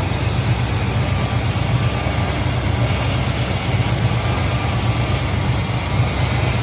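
Old Chevy truck's 350 small-block V8 running at a steady idle.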